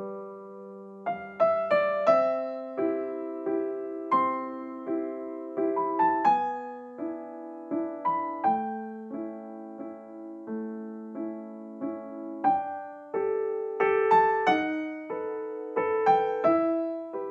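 Background piano music: a gentle melody of struck notes, each fading away, at about one or two notes a second.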